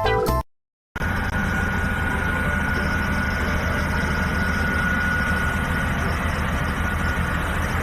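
A motor or engine running steadily, a low rumble with a thin steady whine above it, starting after a brief dropout about a second in.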